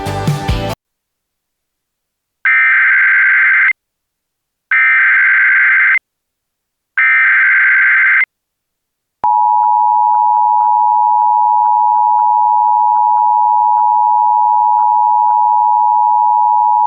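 Emergency Alert System tones: three short bursts of digital SAME header data, each a little over a second long, then the steady two-tone EAS attention signal held for about eight seconds. The header bursts carry the coded alert, and the attention signal announces that an emergency message follows.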